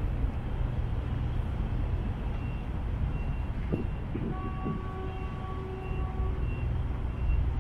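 Outdoor waterfront ambience: a steady low rumble. A few seconds in, a series of short high beeps starts, about two a second. Midway through, a horn-like tone sounds for about two seconds.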